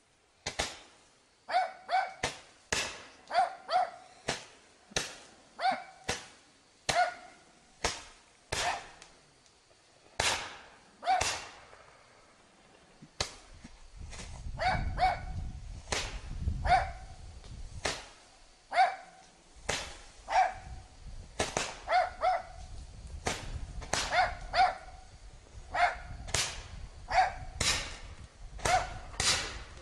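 A ground-launched firework, of the roman-candle or comet kind, firing shot after shot into the air: a long run of sharp pops, one or two a second and sometimes in quick pairs, each with a short ringing tail. A low rumble runs underneath from about halfway through.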